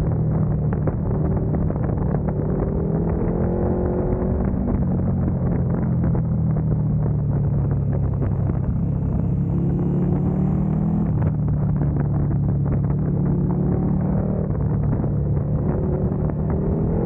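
KTM motorcycle engine running close to the microphone while riding at moderate speed in a low gear, its pitch rising and falling gently with the throttle through the bends.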